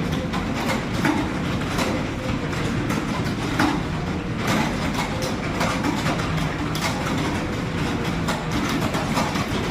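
Computer keyboards being typed on fast during a timed typing test: a continuous, dense clatter of keystrokes, with a steady low hum underneath.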